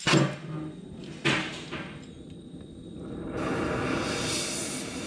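Two heavy knocks about a second apart, then a steady rushing noise starts a little past the middle.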